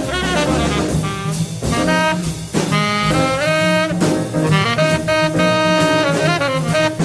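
Hard bop jazz recording: a tenor saxophone solo of held and sliding notes, with drums and cymbals keeping time behind it.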